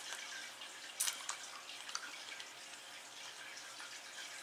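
Faint, steady trickling of aquarium filter water, with a few small clicks about a second in.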